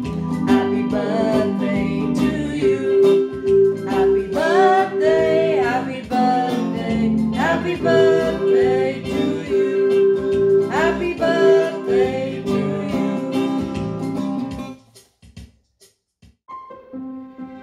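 A woman singing to a strummed acoustic guitar, over a held keyboard note. The song stops about fifteen seconds in, and after a short gap soft background music starts.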